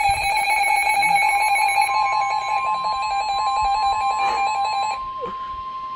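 Weather radio alert alarm sounding for a flash flood warning: a loud, rapidly pulsing tone that stops about five seconds in. A steady, slightly higher tone, the broadcast's warning alarm tone, joins about two seconds in and carries on.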